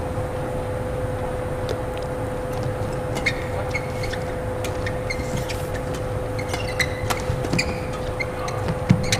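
A badminton rally in an indoor hall: rackets strike the shuttlecock as sharp clicks at irregular intervals, with players' footwork on the court, over a steady low hall hum and rumble.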